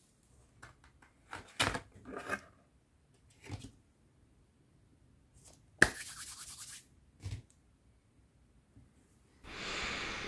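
Cardboard pizza box handled and opened, with a few scrapes and taps in the first few seconds. About six seconds in comes a sharp clap, then about a second of palms rubbing together. Near the end there is a longer, even rushing noise lasting over a second.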